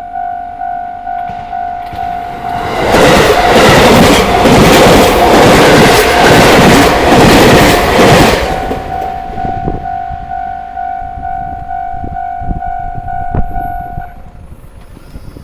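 Japanese level-crossing warning bell ringing in rapid repeated electronic dings. It is drowned out for about five seconds by a train passing close by, wheels clattering over the rail joints. The bell rings on after the train and stops near the end.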